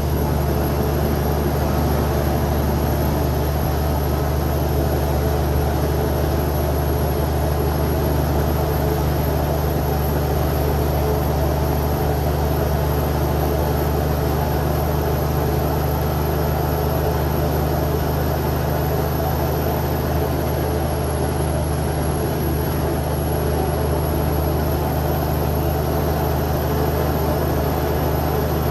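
Cummins X15 inline-six diesel of a Kenworth T800 truck running steadily under load as it pulls up a hill. It gives a deep, even drone with no gear changes or breaks.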